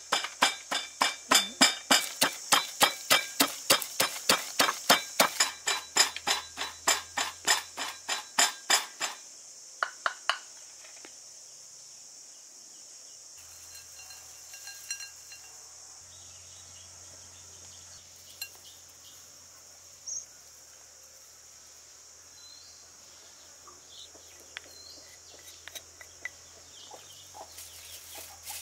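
Mortar and pestle pounding, about three sharp strikes a second for the first nine seconds, then stopping; after that only a few faint clinks of bowl and utensils. A steady high insect drone runs underneath throughout.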